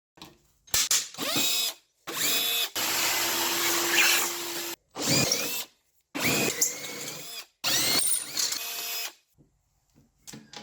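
Electric drill run in about six short bursts, its motor whine rising as it spins up at the start of each.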